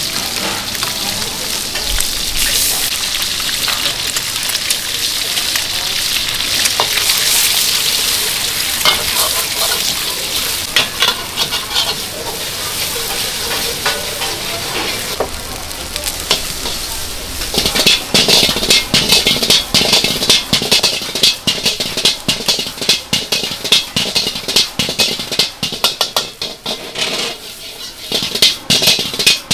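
Fried rice sizzling in a hot wok. From a little past halfway, a fast, loud clatter takes over as the spatula scrapes and strikes the wok while the rice is tossed.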